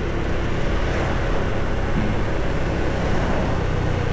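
Steady vehicle and road noise from riding along a city street: an engine running under a dense, even rumble.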